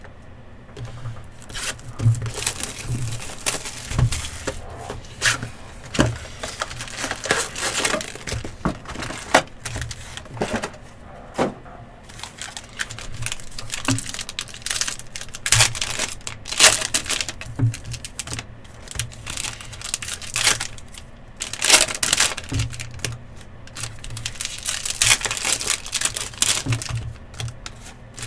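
Football trading-card pack wrappers crinkling and tearing open, with cards being handled, in irregular rustles and clicks.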